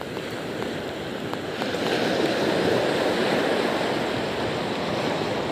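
Small waves breaking and washing up a beach: a steady rush of surf that swells about two seconds in and then eases a little.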